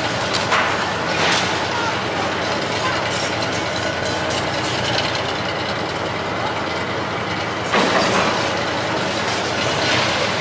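Engine of a lattice-boom demolition crane running steadily while it works a wrecking ball, with clattering from its machinery. There are short sharp knocks near the start and louder ones about 8 and 10 seconds in.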